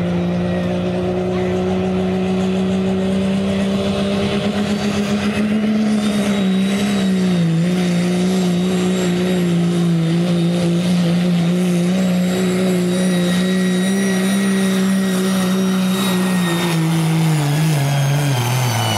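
Second-generation Dodge Ram diesel pickup at full throttle pulling a weight sled, its engine held at high revs with a high turbo whistle over it. The engine pitch sags about six seconds in as the sled loads it, then falls away near the end as the pull finishes.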